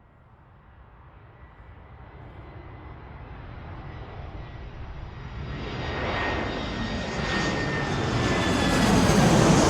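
Jet airplane approaching overhead. Its engine noise builds steadily from faint to loud, with a thin whine running through it, and is loudest near the end.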